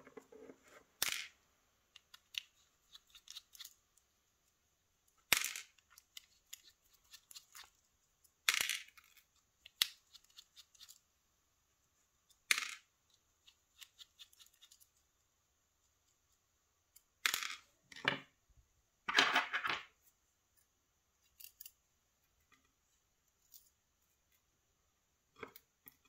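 Scattered small metallic clicks and short scrapes as a small screwdriver works springs and small parts out of a brass lock cylinder, the pieces dropping onto a plastic parts tray.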